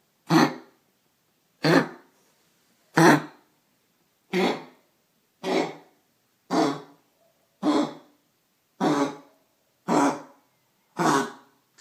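A sick pet coughing over and over in a steady run, about ten coughs roughly a second apart, a sign of its sore, irritated throat.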